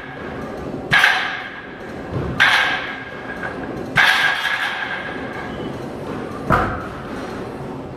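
Heavy plate-loaded barbell clanking against a steel power rack: four sharp metallic knocks a second or two apart, each with a short ring, the last a deeper thud.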